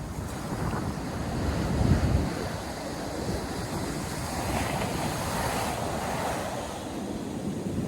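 Surf breaking and washing on a sandy North Sea beach, a continuous rushing with a louder swell about two seconds in and a hissing wash of water a little past the middle, mixed with low rumbling wind buffeting the microphone.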